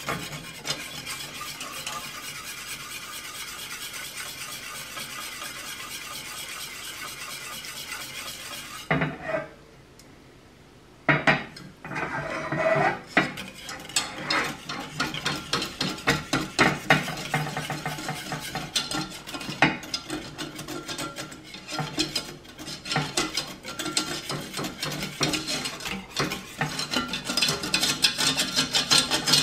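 A wire whisk scraping and clicking against a stainless steel saucepan as thick chocolate caramel sauce is stirred, while the sauce sizzles over the heat. The sound drops away briefly about ten seconds in, then comes back as quick, irregular whisk strokes.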